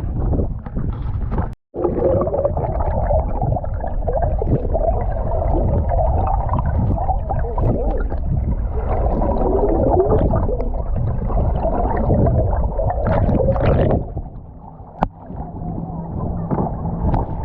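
Kayak on the water: paddle and water noise under a loud low rumble, cutting out briefly about a second and a half in and easing off about 14 seconds in.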